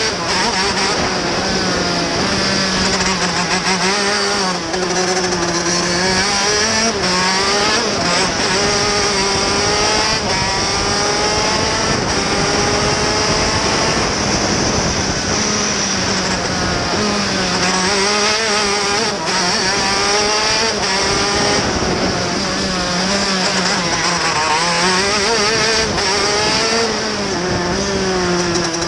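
A TM K8 125cc two-stroke KZ shifter kart engine at racing revs, heard onboard. Its pitch climbs on the straights and drops into the corners, over and over through the lap.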